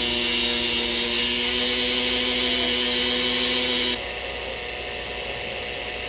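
Dental laboratory handpiece spinning a bristle brush loaded with rouge against a gold bridge, the final high-shine polishing stage: a steady motor whine with a loud hiss. About four seconds in, the sound cuts to a quieter, even hiss as a cloth rag wheel spins on the handpiece to clear off excess rouge.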